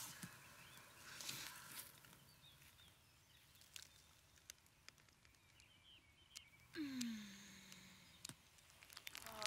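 Near silence: faint outdoor ambience with a few faint chirps, and about seven seconds in a short falling vocal sound from one of the two people.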